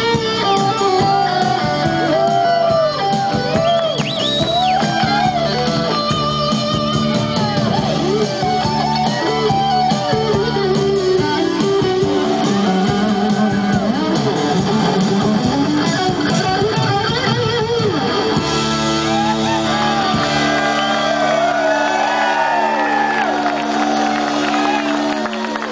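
Live rock band playing, with guitar and a singer's voice over the band. The music is loud and continuous.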